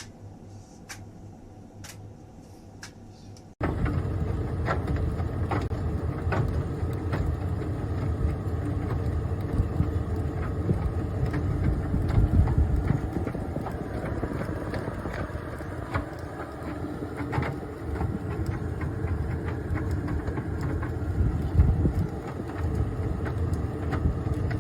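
Cookology CMVD25WH mini vented tumble dryer switched on after a few faint clicks, starting abruptly about three and a half seconds in. It then runs steadily, with the motor and fan humming, the drum turning and frequent light knocks and clicks.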